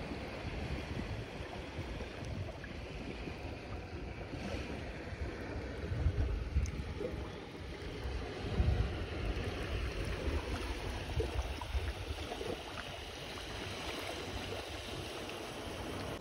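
Sea waves washing against the shore, a steady rushing wash, with wind rumbling on the microphone in gusts.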